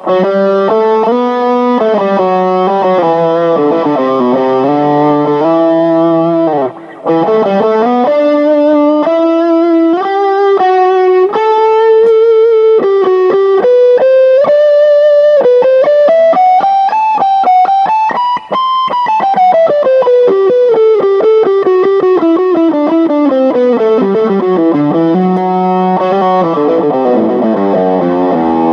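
Yamaha Studio Lord SL-500 solid-body electric guitar played through an amplifier with effects, in a steady stream of single-note runs. The notes wind upward to a high point about two-thirds of the way through, then descend again, with a brief break near the quarter mark.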